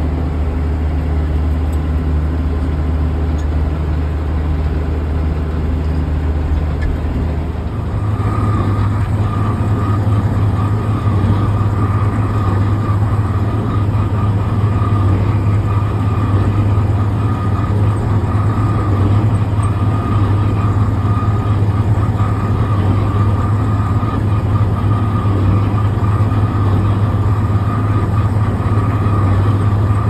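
Tractor diesel engine running steadily while pulling and driving a Hesston 7433 baler. About eight seconds in the engine settles at a higher, even speed, and a steady whine joins it.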